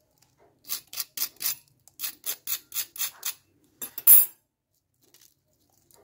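Crisp fried crust of a red poha and potato snack crackling under the fingers: a run of short crisp clicks, about four a second, then one louder crack about four seconds in.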